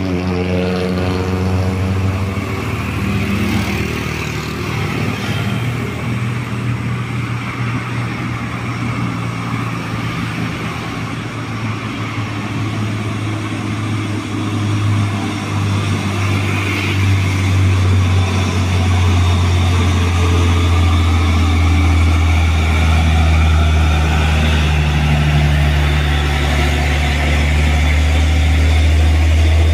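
Hino 500 wingbox truck's diesel engine pulling up a steep climb, a steady low engine drone that grows louder about halfway through and is loudest near the end as the truck passes close.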